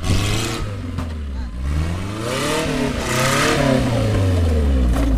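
Off-road 4x4 engine running under load and being revved, its pitch rising and falling in the middle and settling to a steady low run near the end.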